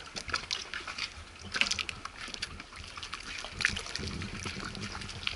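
Water lapping and sloshing against the hulls of moored boats, with irregular small splashes and clicks.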